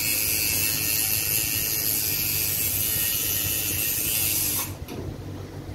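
Electric tattoo machine buzzing steadily as the artist works the needle into a forearm, then cutting off suddenly about four and a half seconds in.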